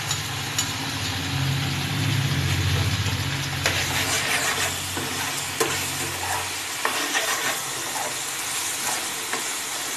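Onions, capsicum and sauces sizzling in a non-stick frying pan on a gas stove while a metal spoon stirs in the spices, with scattered clicks and scrapes of the spoon against the pan. A low hum runs underneath for about the first six seconds.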